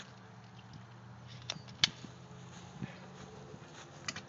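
A few short sharp clicks, the loudest about two seconds in and another near the end, over a faint low steady hum.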